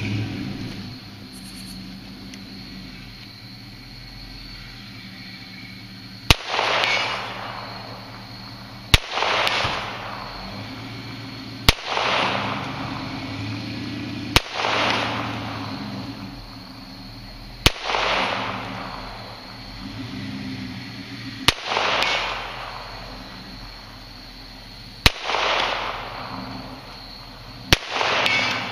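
A .22 LR Ruger Mark III Hunter pistol fired eight times, single shots spaced a few seconds apart. Each sharp crack is followed by about a second of rolling echo.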